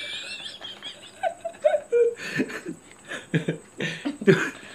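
A woman and a man laughing in short, repeated bursts.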